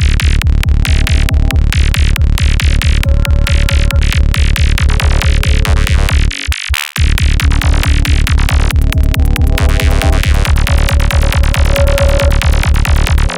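Electronic dance music with a fast, steady kick drum and pulsing bass under synth lines. The beat drops out briefly about six seconds in, then comes straight back.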